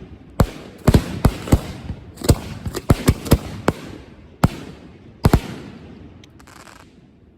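Fireworks going off in rapid succession during a finale: about a dozen sharp bangs, some in quick pairs, each followed by a short echoing tail. The bangs stop about five and a half seconds in and the echo dies away.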